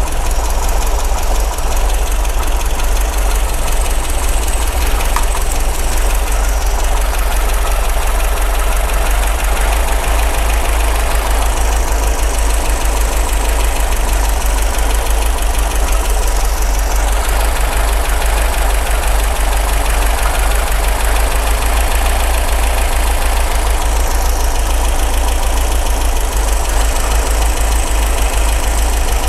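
MGB's 1.8-litre B-series four-cylinder engine idling steadily while its twin SU carburettors are being balanced by small turns of their adjusting screws.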